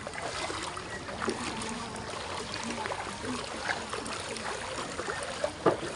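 Footsteps wading through shallow floodwater: steady sloshing and splashing of water around the feet, with one sharp louder splash or knock near the end.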